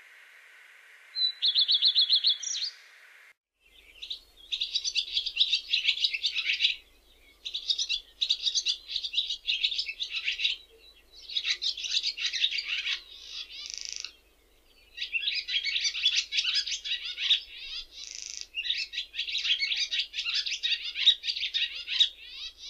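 Songbird song: a short high trill about a second in, then after a brief break a long run of fast, twittering song phrases, each a few seconds long, separated by short pauses.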